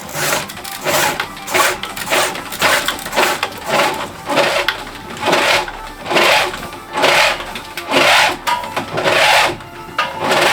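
Rhythmic rubbing strokes on wood, about one and a half a second: electrical cable being pulled hand over hand through holes drilled in the wooden studs, its sheath scraping the wood.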